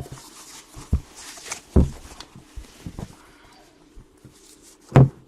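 Cardboard trading-card boxes being handled: a rustle and a few knocks, the loudest a sharp knock near the end.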